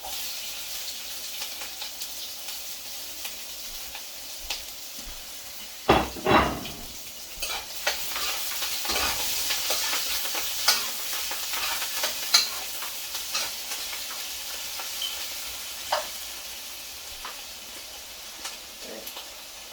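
Chopped celery, mint, shallot and parsley frying in hot oil with onion and ginger: a steady sizzle that starts at once, while a utensil stirs and now and then clicks and knocks against the pot, loudest about six seconds in.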